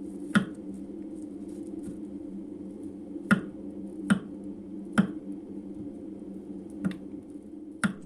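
Six short, sharp taps or clicks at uneven intervals over a steady low hum.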